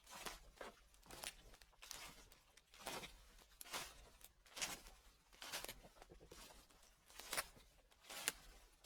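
Footsteps in fallen leaves at a steady walking pace, about one step a second.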